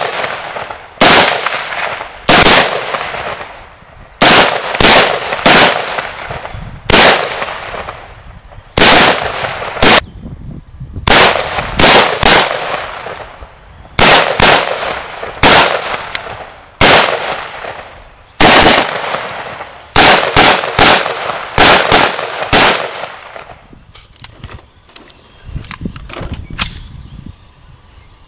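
Semi-automatic rifle fire from a WASR-10/63 AK-pattern rifle in 7.62x39mm and an AR-15 in 5.56 NATO: about thirty single shots in quick, irregular succession, each with a rolling echo. The shooting stops about five seconds before the end, leaving a few faint clicks.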